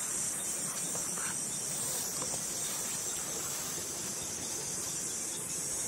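Insects such as crickets or cicadas droning steadily in a high, even hiss.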